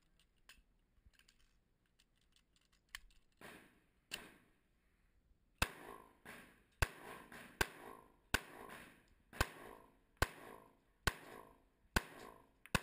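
Pistol shots fired in a steady string, about nine sharp reports roughly a second apart beginning about five and a half seconds in, each with a short echo tail. A few fainter sharp sounds come before the string.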